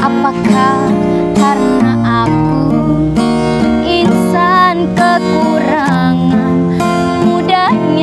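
A woman singing in a high voice with ornamented, wavering melodic turns (cengkok), accompanied by a strummed acoustic guitar.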